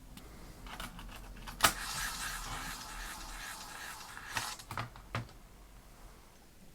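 Amiga 500 internal floppy drive trying to read a freshly inserted disk: a sharp click, then a couple of seconds of spinning and head-stepping noise, and a few more clicks. The disk fails to boot, a drive fault caused by a faulty CIA chip.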